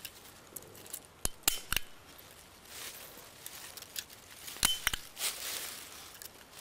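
Sharp snaps of a handheld stapler fastening a 14-gauge anodized steel chainmail swatch onto a cantaloupe, three in quick succession a little over a second in and another later. The steel rings clink and rustle between the snaps.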